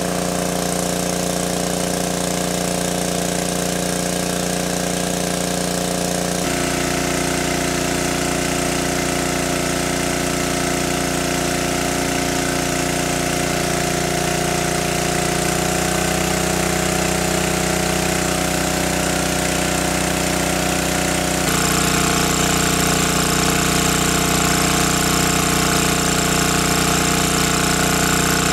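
Small petrol engine of a portable water pump running steadily at constant speed, with water gushing from the outlet hose.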